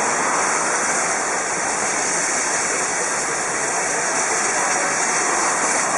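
Steady hiss of steam venting from a standing steam locomotive, with no exhaust beats.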